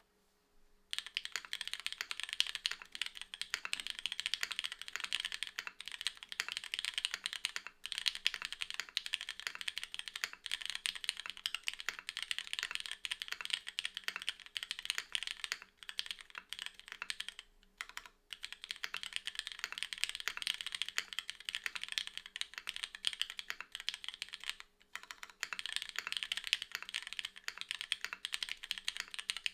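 Fast continuous typing on a custom mechanical keyboard with Cherry MX2A Black linear switches, DCS-profile keycaps and an aluminium plate on an O-ring mount with no foam, the keystrokes clattering densely with a few brief pauses. The typing starts about a second in.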